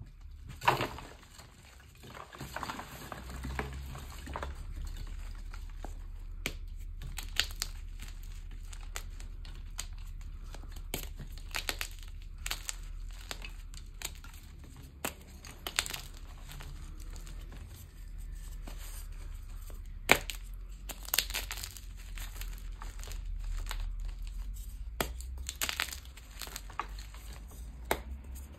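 Pink gym chalk blocks squeezed and snapped by hand, crumbling into chunks and powder: a steady dry crunching broken by irregular sharp cracks as pieces break off.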